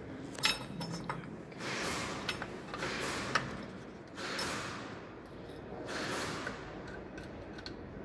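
Light metallic clicks and clinks from pliers gripping and bending a steel hook bracket. Soft hissy swells come and go every second or so.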